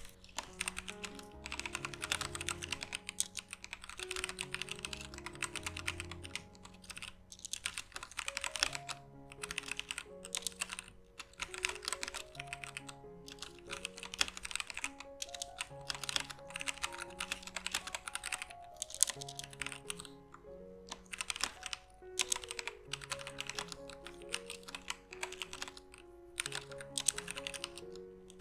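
Typing on a Womier K66 60% mechanical keyboard with Gateron Brown switches: fast runs of keystrokes broken by short pauses every few seconds. Background music with soft held notes plays underneath.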